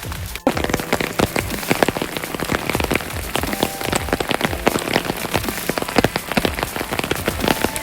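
Rain falling: a dense, irregular stream of drops striking a surface, starting suddenly about half a second in.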